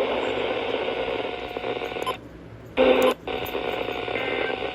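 Radio static hissing from a NOAA Weather Radio receiver between announcements. It drops away for about half a second a little after two seconds in, then a brief, louder burst comes through.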